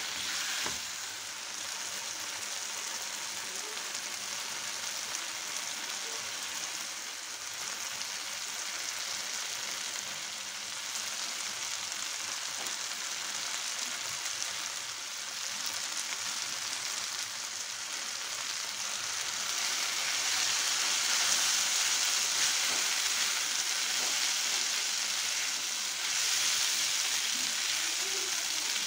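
Vegetables in sauce sizzling steadily in a hot pan while being stirred with a silicone spatula, with boiled spaghetti tossed in among them. The sizzle grows louder about two-thirds of the way through.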